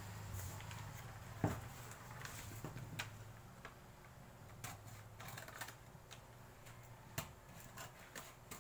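Scissors cutting through pattern paper: faint, irregular snips and clicks of the blades, with one sharper click about a second and a half in, and the paper rustling as it is handled.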